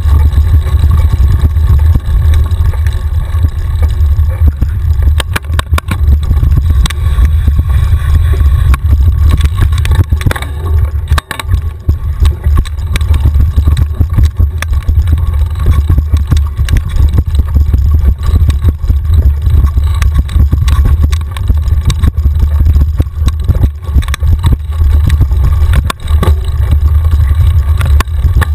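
Wind buffeting and ride vibration on a camera mounted on a mountain bike riding rough dirt singletrack: a loud, steady low rumble with many small clicks and rattles from the bike going over roots and ruts.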